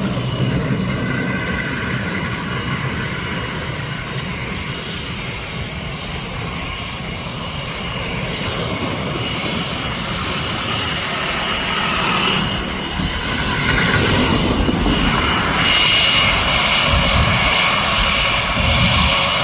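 Airbus A320 jet engines running, a steady loud jet noise with a high whine that grows louder about two-thirds of the way through.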